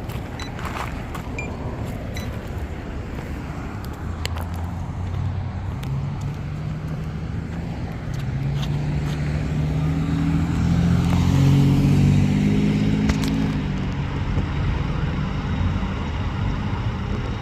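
Road traffic: a motor vehicle's engine running close by, getting louder to a peak about eleven to twelve seconds in, then fading, over steady traffic noise.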